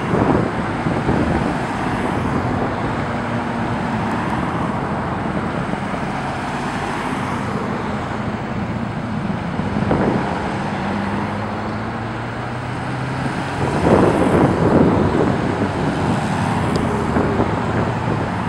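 A steady stream of Corvettes driving past, their V8 engines running at low speed, with cars swelling louder as each one goes by. The loudest pass comes about three-quarters of the way through.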